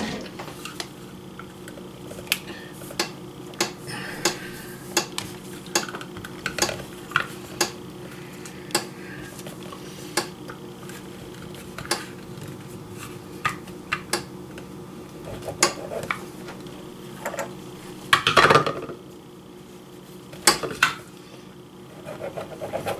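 Pizza cutter cutting a flour tortilla, its wheel clicking and clinking against a hard surface in an irregular string of sharp ticks, with a louder clatter about eighteen seconds in. A faint steady hum runs underneath.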